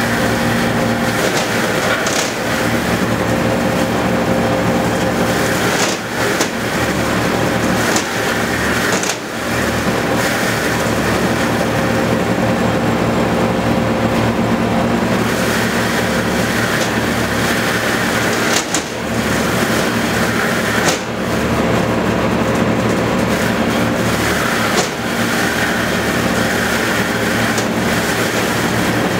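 Tractor-driven Hustler Chainless 2000 bale processor with Hurricane attachment running steadily under the tractor engine's drone, throwing straw bedding: a continuous mechanical rush with a few brief dips in level.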